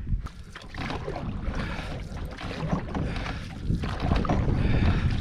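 Canoe on the water with wind buffeting the microphone, an uneven rumbling noise that swells and eases, getting louder in the second half.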